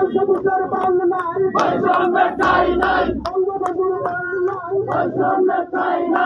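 A crowd of protesters, including children, chanting slogans together in short, repeated rhythmic bursts.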